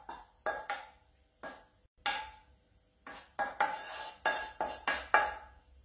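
A metal utensil tapping and scraping against a pan while sauce is spooned onto a plate of pasta: a string of sharp metallic clinks with short ringing, sparse at first and coming quickly one after another from about three seconds in.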